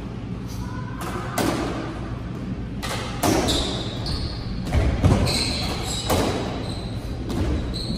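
Squash ball struck by rackets and rebounding off the court walls and floor: a string of sharp, echoing impacts at irregular intervals, the loudest near the middle as the rally gets going.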